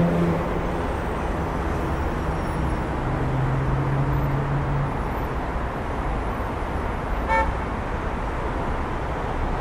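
Street traffic running steadily, with a low steady drone from a vehicle for about two seconds around three seconds in and a single short beep near the end.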